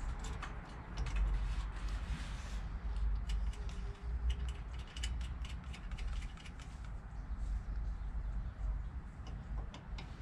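Ratchet wrench clicking in quick runs as nuts are run down onto the carburetor spacer studs.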